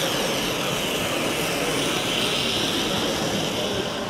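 Electric motor of a small OO9 narrow-gauge model locomotive whining as it runs along the track. The pitch dips in the first second, then rises and holds steady.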